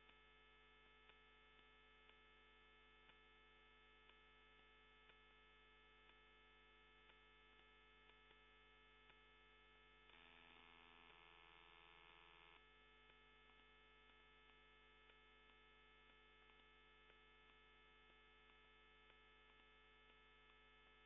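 Near silence: a steady electrical hum of many steady tones with faint regular ticks, changing in tone and growing slightly louder for a couple of seconds near the middle.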